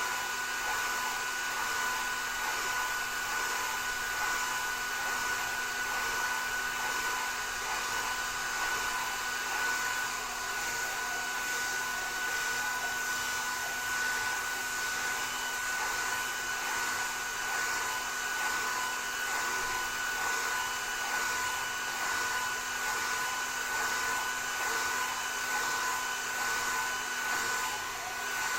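Hair dryer running steadily, a constant rush of air with a thin high whine held at one pitch.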